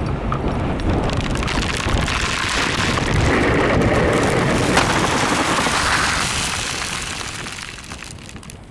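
Dust devil gusting over the microphone: heavy wind rumble and rushing that builds, is strongest in the middle and dies away near the end, with a single sharp knock about halfway.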